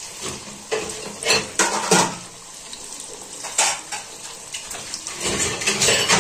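A samosa deep-frying in hot oil in a steel wok, giving a steady sizzle. A metal utensil clinks and scrapes against the pan several times, more often near the end.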